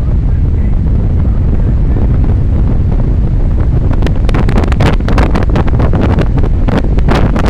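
Wind buffeting the camera's microphone: a loud, steady rumble that turns crackly and gusty from about halfway.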